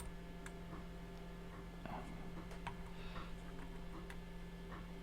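Faint, scattered light clicks and ticks of tools and transistor legs being handled while soldering power transistors onto an amplifier circuit board, over a steady low hum.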